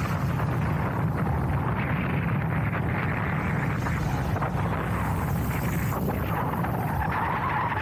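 Motorcycle riding along a road at steady speed: the engine's low drone under a constant rush of wind over the camera's microphone.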